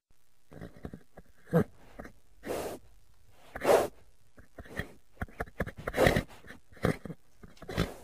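Horse sounds: about half a dozen short, breathy snorts, spaced irregularly, with lighter clicks between them.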